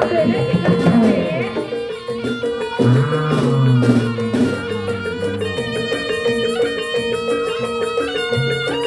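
Live Javanese barongan accompaniment music: drums and a melody over a steady held tone, the melody wavering early on and moving in clear steps from about halfway through.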